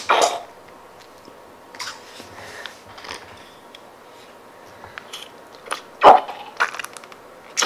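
Wet squelches and crackles of slime being squeezed out of a soft plastic squeeze toy's head, in a handful of short separate bursts; the loudest comes about six seconds in.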